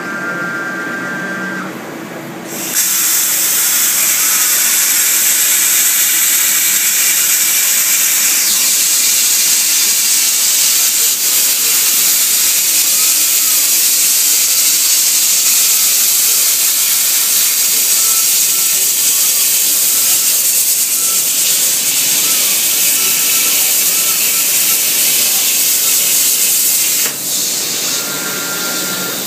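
CNC plasma torch cutting 3 mm steel plate: the plasma arc's loud steady hiss starts suddenly about two and a half seconds in. It drops to a softer hiss near the end. A steady high whine from the machine is heard before the arc starts and again near the end.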